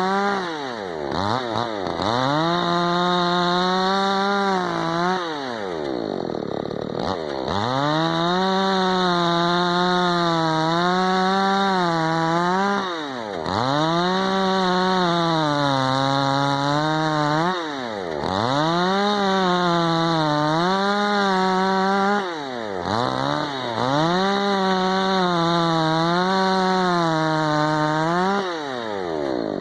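Tekna CS 58 54 cc two-stroke chainsaw engine, revved up and held high for several seconds at a time. The throttle is let off about six times, and each time the engine drops sharply toward idle before climbing straight back up. While it is held high, the pitch sags and recovers slightly.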